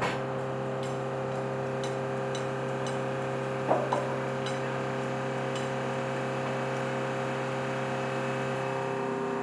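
Steady mechanical hum of ground equipment with faint ticking, and two sharp metal clanks a little under four seconds in as crew work the tripod jacks under a C-5 Galaxy.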